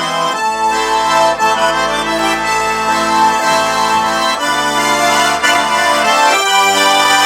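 Russian garmon (button accordion) playing a melody over held chords, the chords changing a few times.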